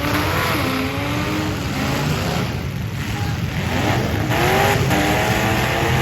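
Several demolition derby cars' engines running together and revving, their pitch rising and falling, with a strong rise about four seconds in.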